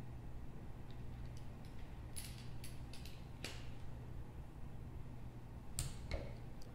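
Scattered sharp metallic clicks of hand wrenches on a cycloidal gearbox's housing bolts as they are ratcheted and torqued down. There is a cluster of clicks around the middle and two more near the end, over a faint low hum.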